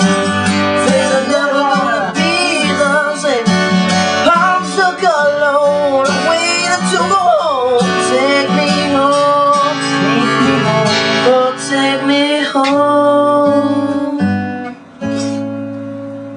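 Acoustic guitar strummed under a wordless sung vocal that slides up and down in pitch. About twelve seconds in the sliding voice gives way to steadier held notes over the guitar, and the playing thins out near the end.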